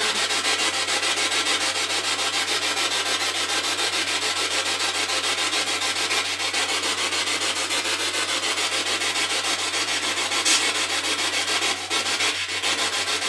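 Spirit box radio scanning through stations: a steady hiss of static chopped into rapid, even pulses, with a faint low hum underneath.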